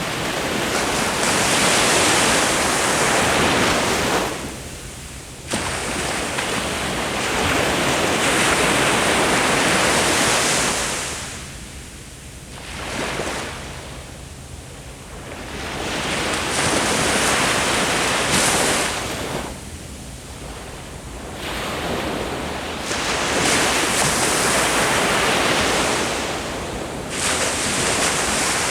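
Ocean waves breaking on the shore, the surf swelling and washing in, then ebbing into quieter lulls, four times in succession; one wave comes in suddenly about five seconds in.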